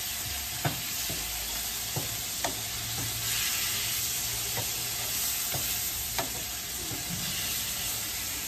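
Onion, spice and chopped tomato masala sizzling in oil in a nonstick frying pan as a wooden spatula stirs it, a steady frying hiss with several sharp taps of the spatula against the pan.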